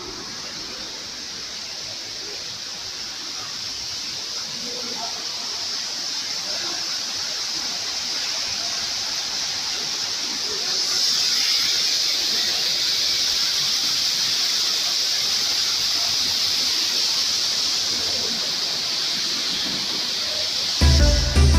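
A steady hiss that grows louder about halfway through.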